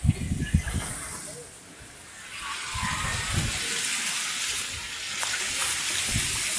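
Wind buffets the microphone in short low thumps. About two seconds in, a long rushing whoosh of air swells up and holds.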